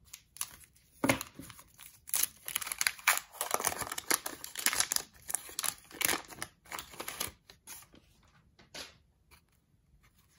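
A 1990 Fleer baseball card pack's wrapper being torn open and crinkled: a couple of sharp rips about a second in, then several seconds of steady tearing and crinkling that thins out to scattered crackles near the end.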